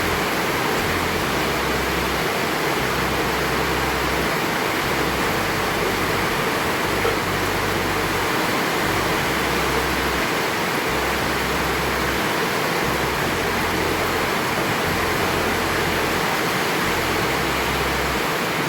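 Steady rain falling, a loud, even hiss with no let-up.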